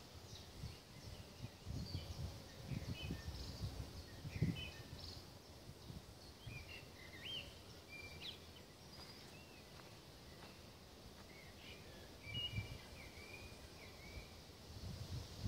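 Small birds chirping and whistling: short, scattered notes, some sliding up or down. Under them are dull low rumbles on the microphone, heaviest about two to five seconds in and again near the end.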